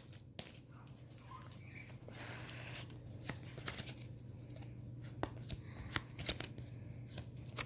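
Pokémon trading cards being handled and slid against one another, faint, with scattered light taps and a brief soft rustle about two seconds in, over a steady low hum.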